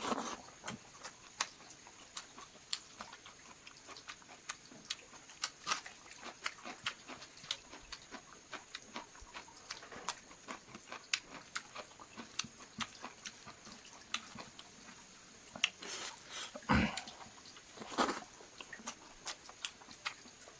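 Close-up eating of chicken: wet chewing and lip-smacking clicks in an irregular run, with two louder smacks about three-quarters of the way through.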